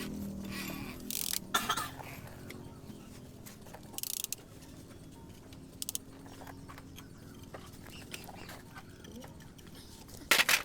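Scattered clicks and knocks of metal tools and parts being handled during a small engine repair, with a loud cluster of clicks near the end over a faint steady hum.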